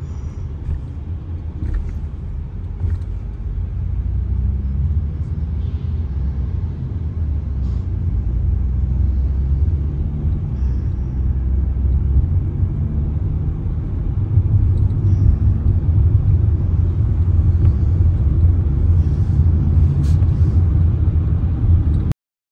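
Low, steady rumble of a car driving: engine and road noise, growing gradually louder and then cutting off abruptly near the end.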